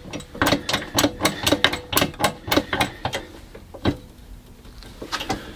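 Rapid clicking from the shop press being worked, about four clicks a second for three seconds, then a single click near four seconds in.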